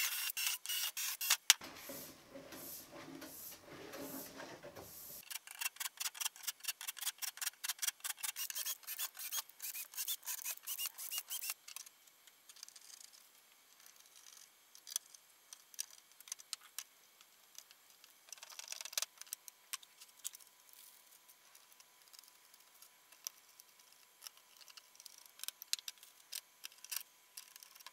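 Cordless drill boring through a thin metal mounting panel in the first few seconds, followed by rapid, regular clicking of screws being driven by hand with a screwdriver. After that, fainter scattered ticks and taps of small screws and parts being handled on the panel.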